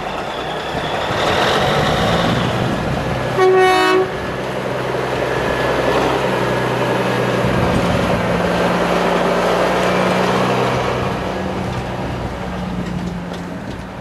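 Diesel semi tractor running as it pulls a 53-foot trailer away through the yard, with one short horn blast about three and a half seconds in, the loudest sound.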